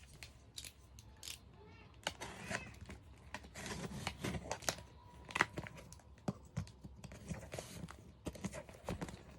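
Packaging being opened by hand: tearing, rustling and crinkling, with scattered clicks and knocks, busiest from about two seconds in.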